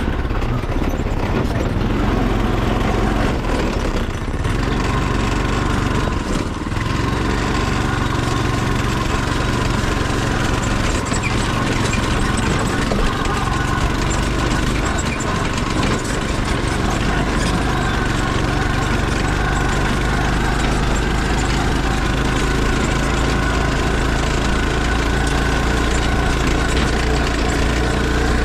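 Off-road go-kart's small engine running steadily while the kart is driven along, with brief dips in level about four and six and a half seconds in.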